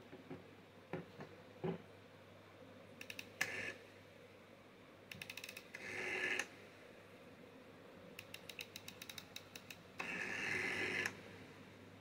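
Rotary dial of a vintage black Bakelite telephone being dialled three times. Each time there is a run of quick clicks as the dial is pulled round, then a whirr as it spins back, and the third return is the longest. A few light knocks from handling the phone come in the first two seconds.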